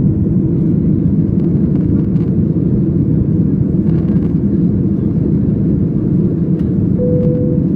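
Steady, loud rumble of a Boeing 737 airliner in flight, its engines and airflow heard inside the passenger cabin. A short steady tone sounds briefly near the end.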